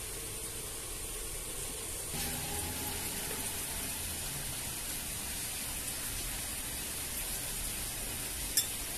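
Steady background hiss with a single sharp clink of porcelain tea things near the end.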